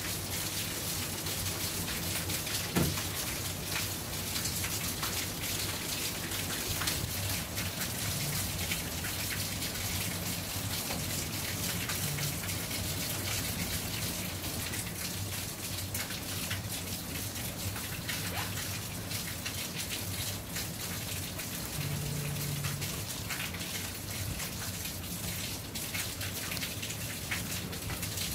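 Steady rain falling, with many small drop ticks over an even hiss and a single louder tap about three seconds in.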